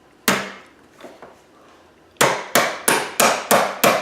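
Hammer blows on a part of an EST SIGA-278 fire alarm pull station being refurbished: a single sharp strike, then from about halfway in a quick, even run of strikes about three a second.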